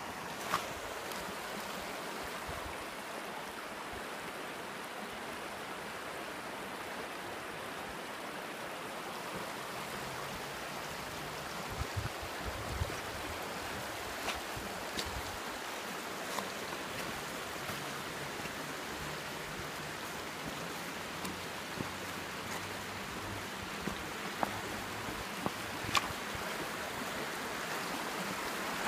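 Shallow river rapids rushing steadily over cobbles, with a few scattered sharp clicks.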